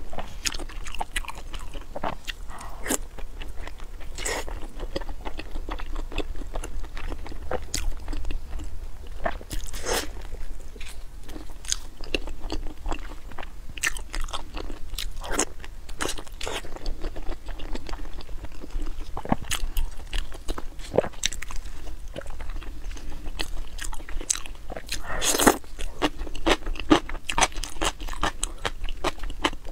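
Close-miked eating: a person biting into and chewing large glazed sausages, with irregular crunchy bites and sharp crackles and wet chewing between them. A thicker run of crunching comes near the end.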